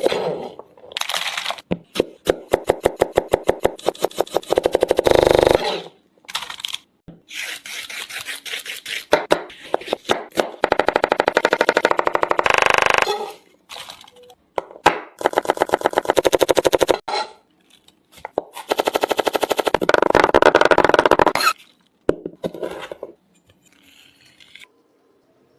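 Food-preparation sounds: several bursts of rapid, evenly spaced sharp knocks, each lasting a few seconds, with short pauses between and a quieter stretch near the end.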